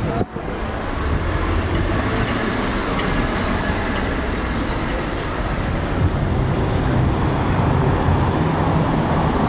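City street traffic noise: a steady low rumble of passing motor vehicles, with a brief break about a quarter second in, then somewhat louder for the rest.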